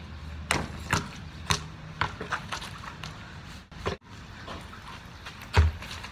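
A basketball bouncing on a wet concrete driveway: a run of sharp bounces about every half second in the first few seconds, then one heavy bounce near the end, over a steady hiss of rain.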